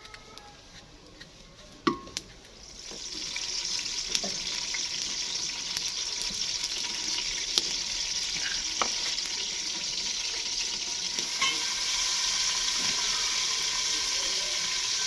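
Food frying in hot oil in a cooking pot: after a sharp clink, a steady sizzle rises in about two and a half seconds in and carries on evenly.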